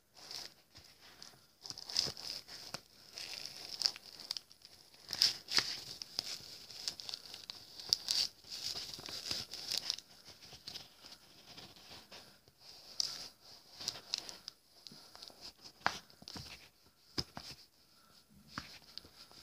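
Clear plastic bag of steel shavings crinkling as fingers press and move it, in irregular rustles with sharp clicks now and then.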